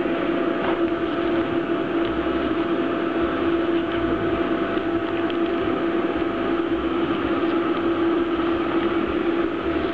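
Steady hum and whir of running workshop machinery, with a constant low drone and a fainter higher tone held throughout. A few faint clicks and rustles of the plastic sheets being handled.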